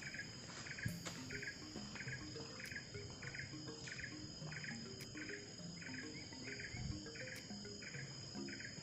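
Chorus of forest insects making a steady high buzz, with a short chirping call repeating about twice a second; it all cuts off abruptly at the end.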